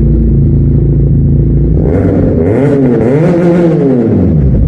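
QJ Motor SRK400 motorcycle with an Ixil aftermarket exhaust, its parallel-twin engine idling, then revved up and let back down once about halfway through before settling to idle again.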